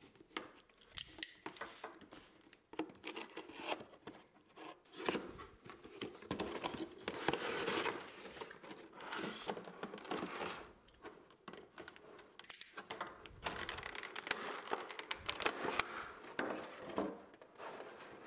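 Plastic packaging and a cardboard box being handled: crinkling, rustling and tearing in irregular spurts, with scattered sharp clicks, as a boxed prize figure is unwrapped.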